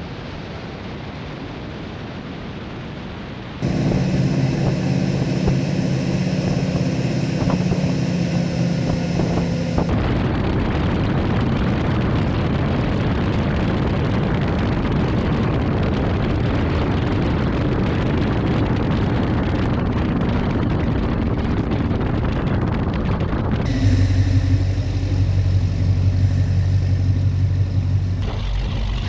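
Skater catamaran powerboat engines heard onboard, in several abruptly cut segments: first a steady engine drone, then a long stretch of dense rushing wind and water noise while running at speed, then the engines running lower and steadier near the end.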